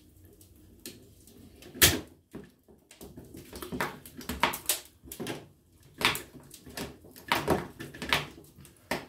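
Small metal clicks and knocks of a screwdriver working screws on an air stapler's body. There is one sharp click about two seconds in, then a steady run of short clicks, about two to three a second.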